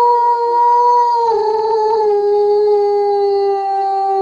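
German Shepherd dog howling one long, steady note, which drops slightly in pitch about a second in.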